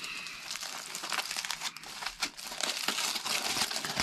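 Aluminium foil crinkling as a foil-wrapped gyro is unfolded by hand, a run of quick irregular crackles.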